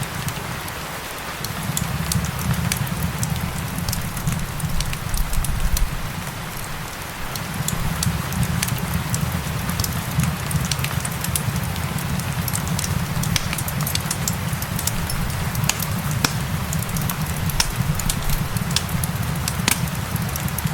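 Wood fire crackling, with frequent sharp pops and snaps, over a steady hiss of falling rain and a low rumble from the fire.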